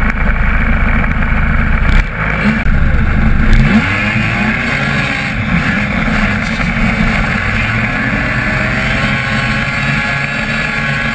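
Two-stroke snowmobile engine running hard at trail speed. It revs up about three and a half seconds in, over heavy wind and track noise.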